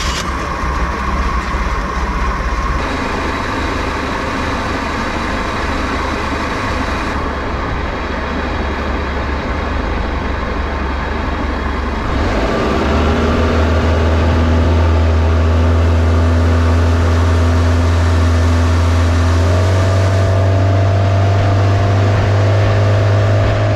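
Old boat's inboard engine running steadily, then throttled up about halfway through and again near the end, getting louder and higher in pitch as the boat gets under way.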